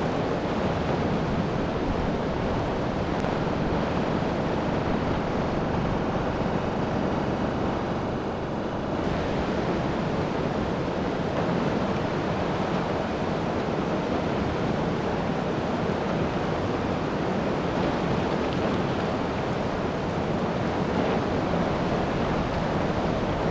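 Whitewater rapids rushing with a steady, unbroken noise of moving water.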